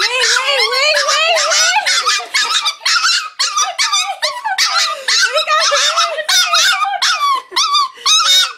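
Yorkshire terrier whining and whimpering almost without a break, in high calls that slide up and down in pitch. She is straining to get to a hamster being held away from her.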